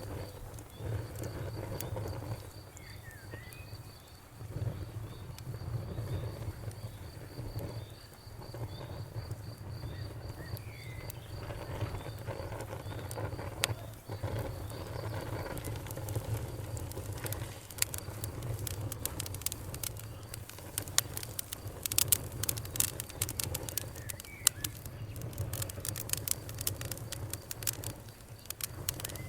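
Campfire crackling over a low rumble of burning wood. Pops are sparse at first, then come thick and sharp through the second half. A high, evenly pulsed chirping runs through the first half, with a few short chirps here and there.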